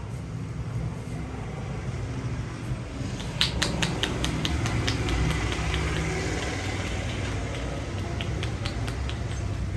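A quick run of sharp hand strikes from a barber's head massage, about five a second, starting about three seconds in and thinning to scattered single strikes near the end. Under them is a steady low rumble of road traffic.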